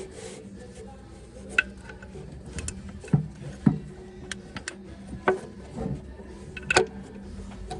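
Irregular sharp clicks and light knocks of hand tools and metal parts being handled, about ten spread over several seconds, while bolts are worked off an engine.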